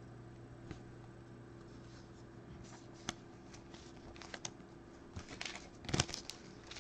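Trading cards and a clear plastic penny sleeve being handled by hand: soft scattered rustles and clicks as a card is slid into the sleeve, then a louder cluster of rustling near the end as the next foil pack is picked up.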